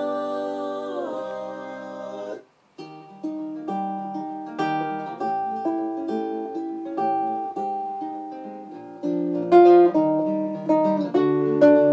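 Recorded music playing: held sung and instrumental notes end a little over two seconds in, a brief total silence follows, then a new passage of plucked guitar notes starts.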